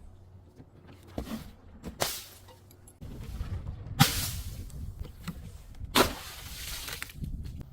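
Objects being crushed: four sharp cracks, the loudest two about four and six seconds in, over a low rumble that starts about three seconds in.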